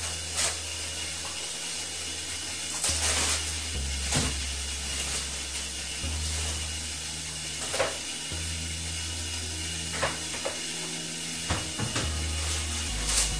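Plastic wrapping crinkling in several short bursts as a toilet seat is unwrapped, over a steady hiss of water running slowly into the toilet tank through its fill valve.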